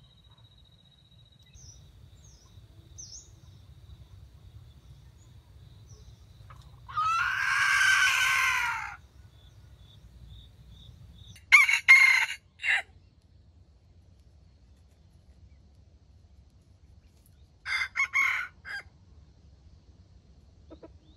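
Red junglefowl crowing: one long crow about a third of the way in, then two short, choppy crows of three and four quick notes later on, the later ones the loudest.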